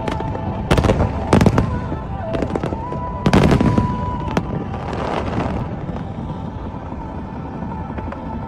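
Fireworks shells bursting overhead, a few clusters of loud sharp cracks with a rumbling tail. The bursts thin out about halfway through, leaving a steady murmur.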